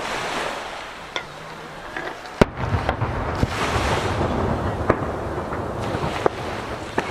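Aerial firework shells bursting over the sea: several sharp bangs, the loudest about two and a half seconds in, echoing off nearby mountains. The steady wash of waves against the jetty runs underneath.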